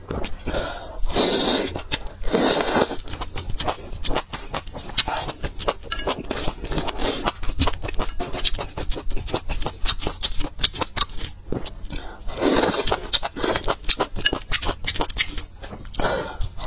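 Close-miked eating sounds: steady wet chewing and lip smacks, with loud slurps of strands and broth from a spicy soup about a second in, near three seconds and again around twelve and a half seconds.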